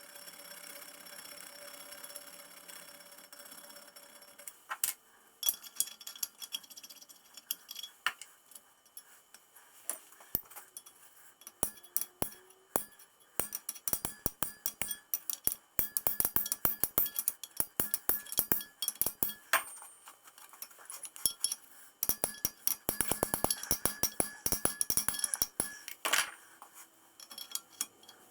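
Light metallic tapping on a steel pin and part: many quick sharp taps, sparse at first and then in dense runs, as a slightly oversized replacement pin is worked into the tram gear-shifter part.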